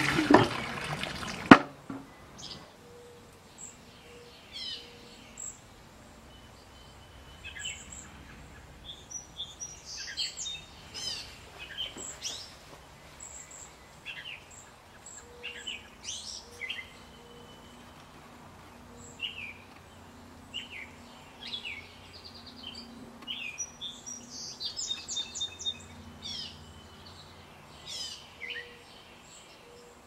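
Bamboo shishi-odoshi deer scarer tipping to spill its load of water with a rush of splashing, then swinging back to knock against its rock, with one sharp, loud knock about a second and a half in. Small birds then chirp and call many times over a faint trickle of water.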